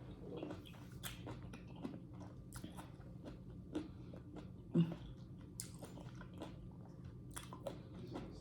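A person chewing and biting into fruit, a steady run of wet, irregular mouth smacks and soft crunches, with one louder knock about five seconds in.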